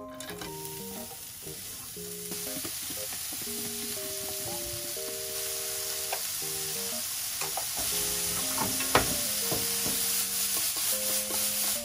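Food sizzling in a frying pan, the hiss slowly growing louder, with a few clicks and one sharper knock about nine seconds in. A light background music melody plays over it.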